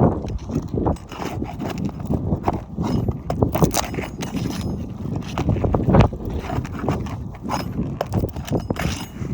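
Irregular knocks, taps and scrapes of tool work on a shingle roof, the sound of old fasteners and seals being pried out and shingles worked with a roof snake tool.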